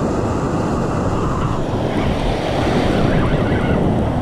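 Ocean surf washing and rushing around a camera held just above the water, with wind buffeting the microphone; the wash swells a little louder about halfway through.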